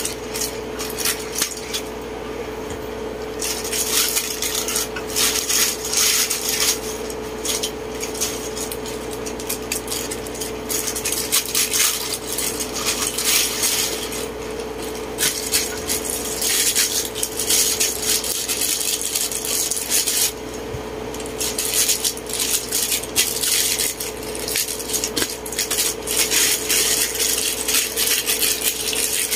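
Clear plastic packaging bags crinkling and small hard plastic figure parts clicking and clattering as they are unwrapped and set down, in several bouts of rapid handling, over a steady hum.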